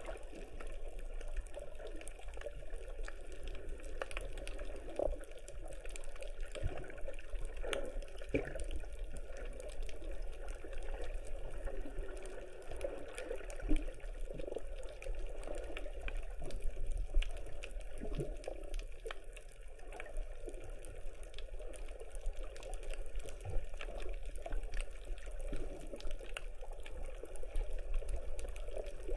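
Muffled underwater ambience picked up by a submerged camera: a steady low rumble and water wash, dotted with many small clicks and crackles.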